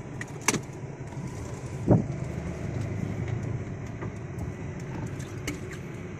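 Car engine and road rumble heard from inside the cabin as the car drives slowly, with a sharp click about half a second in and a heavier thump just before two seconds in.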